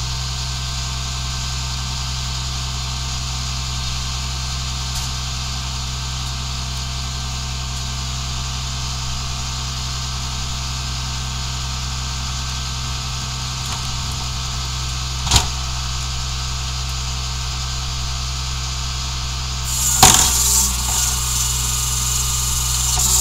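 Engine of an International rear-loader garbage truck idling steadily. A single sharp knock comes about two-thirds of the way through, and near the end there is clattering and hiss as a wheeled cart is hooked onto the cart tipper and lifted.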